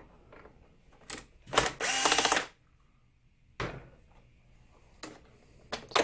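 Cordless drill-driver backing out the projector's lamp-module screws: a short spin about a second in, then a longer run of about a second with a steady whine. A few sharp clicks of plastic parts being handled follow.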